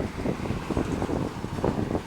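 Wind buffeting the microphone in uneven gusts over a low rumble.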